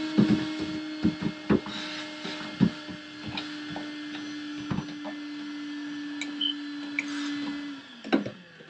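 Cordless wet/dry shop vacuum running steadily, with repeated knocks and clatters as the nozzle works around inside the boat's deck compartment. It is switched off near the end, its pitch dropping as the motor winds down.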